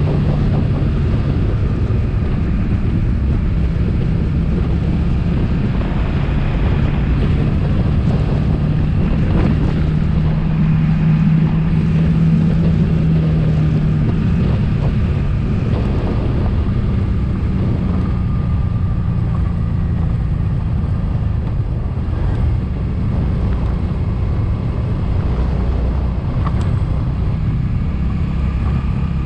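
Suzuki V-Strom motorcycle engine running steadily while riding, mixed with wind rushing over the microphone; the engine hum climbs a little in pitch around the middle and settles again.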